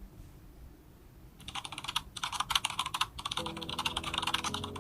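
CapCut's 'typing long' keyboard typing sound effect playing back. Rapid clicking keystrokes start about a second and a half in, with a couple of brief pauses. Faint steady low tones join later.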